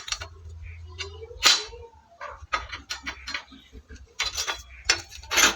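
Irregular clinks and knocks of metal being handled, over a low steady hum.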